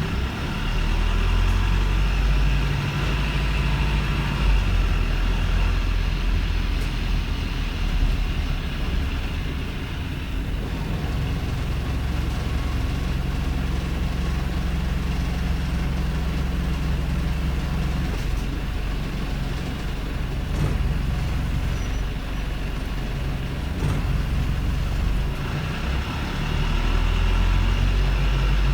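Wrightbus StreetLite bus's Daimler OM934 four-cylinder diesel engine running, a steady low drone that grows louder and eases off several times. The engine is one that runs with a rough idle.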